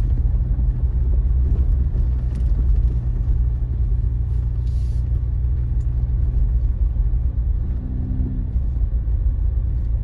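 Jeep engine and tyres at a slow drive, heard from inside the cab: a steady low rumble as it rolls across a wooden-decked one-lane bridge and onto gravel.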